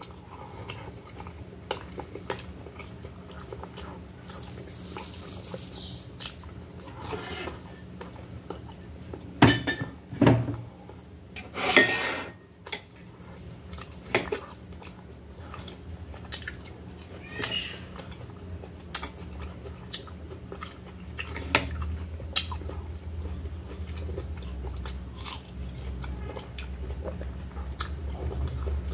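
Close, wet chewing of melon, with the clicks and taps of a fork and knife against a plate. The louder knocks and scrapes come in a cluster a little before the middle.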